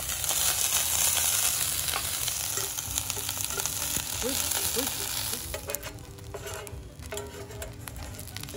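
Paper wasp larvae and pupae sizzling as they drop into hot sesame oil in a stainless steel pan, stirred with chopsticks. The sizzle is strongest for about the first five seconds, then dies down, with light clicks and scrapes of utensils against the pan.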